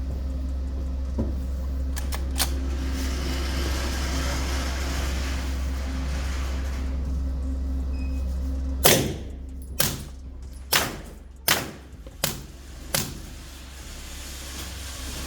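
Suppressed gunfire: a string of six sharp shots roughly one a second, the first the loudest, after a few seconds of steady background hum with a couple of faint clicks.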